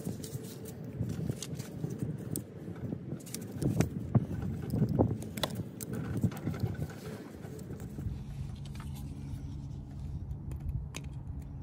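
Small metallic clicks, taps and handling noises as a horseshoe retaining clip is worked off the parking brake lever pin of a steel drum brake shoe, busiest about four to five seconds in. About two-thirds of the way through, a steady low hum comes in underneath.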